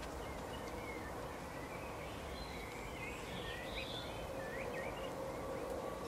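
Small songbirds twittering in short, quick chirps, busiest through the middle seconds, over a steady outdoor background noise with a faint hum.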